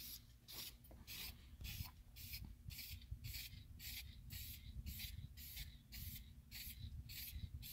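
Fabric dye being worked onto car carpet in quick, regular hissing strokes, about two or three a second.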